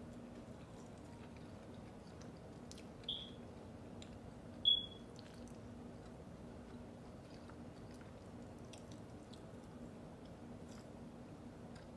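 Close-miked chewing of food, with faint wet clicks over a steady low hum. Two short, high-pitched beeps, about a second and a half apart, are the loudest sounds: an electronic chirp in the background.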